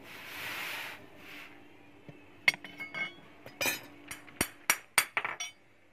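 Red-hot steel knife blade hissing briefly as it is quenched in water. From about two and a half seconds in comes a string of sharp, ringing metallic clinks, closer together toward the end: light hammer taps on the steel blade.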